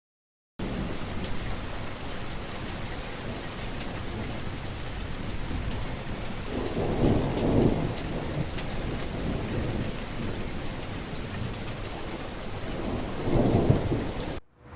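Steady rain with two low rolls of thunder, the first about seven seconds in and a louder one about thirteen seconds in; the sound cuts off abruptly just before the end.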